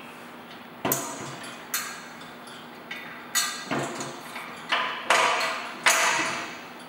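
Steel plow frame and blade brackets clanking and clinking as they are shifted to line up the bolt holes and bolts are fitted through them. There are several separate knocks, each with a short metallic ring, the loudest in the second half.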